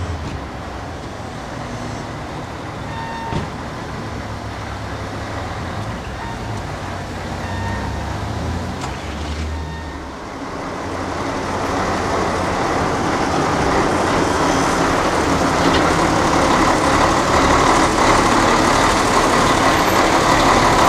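Lorry's diesel engine running as the truck reverses slowly to a loading bay. About halfway through the sound grows louder and fuller, with more hiss, heard from close beside the trailer.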